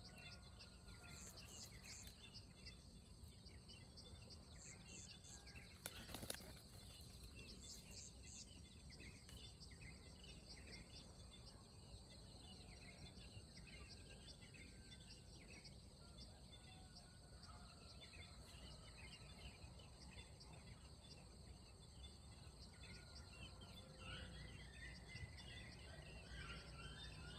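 Faint rice-paddy dawn ambience: many small birds chirp here and there over a steady high insect hum. A single sharp click sounds about six seconds in.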